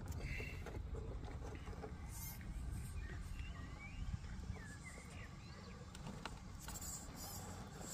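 Outdoor ambience dominated by a steady low wind rumble on the microphone, with short high chirps near the start and again a few seconds in. Scattered faint clicks of stones as an RC scale crawler picks its way slowly over a rubble pile.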